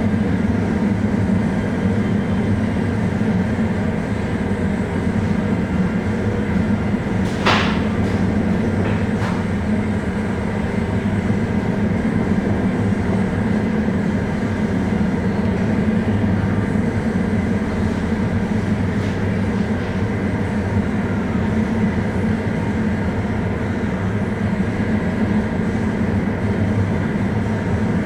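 Steady drone of a ship's engines and machinery heard on board a ferry, a constant low hum with rushing noise over it. One sharp knock about seven and a half seconds in.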